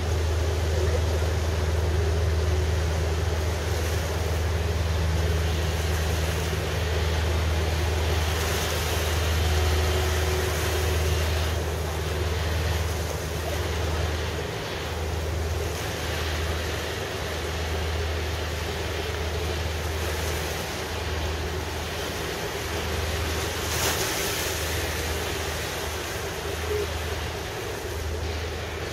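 Steady low drone of a ship's engine under the wash of harbour water and wind.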